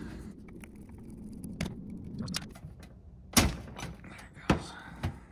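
Metal tools and carburetor parts clinking and knocking on a steel workbench as a wrench is set onto a fitting of a Rochester two-jet carburetor. A few light clicks come first, then a sharp metal knock about three and a half seconds in, and two smaller ones about a second later.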